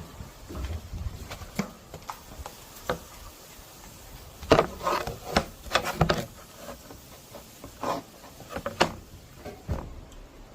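Thin wooden frame pieces being handled, fitted and knocked together: irregular wooden clicks and knocks with light rubbing, busiest about halfway through.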